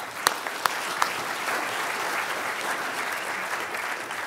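An audience applauding a finished talk: the clapping swells up in the first second, with a few single sharp claps standing out, holds steady, and dies away near the end.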